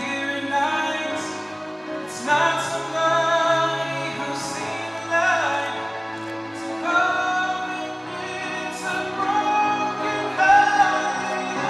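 A man singing a slow ballad, holding long notes with vibrato, over instrumental accompaniment that sustains low notes underneath.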